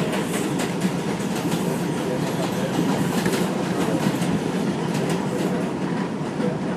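R142 subway car running along the track, heard from inside the car: a steady rumble of wheels on rails with irregular clicks and clacks as the wheels cross rail joints.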